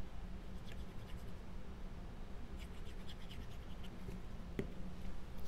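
Faint scratching and light ticking of cardstock pieces being handled and dabbed with a fine-tip glue bottle: two short runs of ticks, about a second and three seconds in, and one sharper click near the end.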